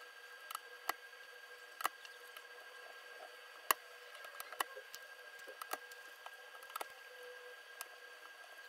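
Sped-up audio of mechanical keyboard switches being pulled out of the plate one by one: scattered sharp plastic clicks and snaps at irregular intervals, over a faint steady high tone.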